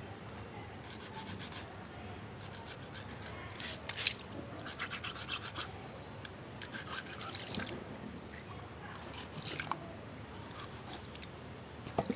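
A wet fish being rubbed back and forth on a rough stone grinding slab (sil) to strip off its scales: bursts of quick, scratchy strokes with short pauses between them.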